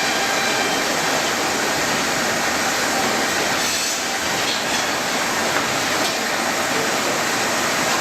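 Steady industrial machinery noise, running evenly throughout with no pauses.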